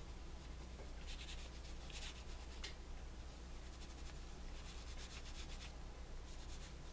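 Oil pastel rubbing on paper in several short spells of scratchy strokes as a shadow is shaded in, over a steady low hum.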